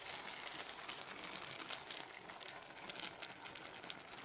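Pot of basmati pilau rice sizzling with a steady fine crackle on the heat as saffron milk is poured over it.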